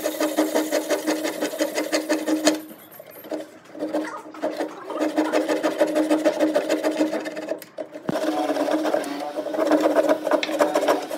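Wide-bladed hand saw cutting through hardwood keys set in a pine cabinet's corner joint, trimming them flush: fast, even strokes with a steady note under them, pausing briefly about 3 and 8 seconds in.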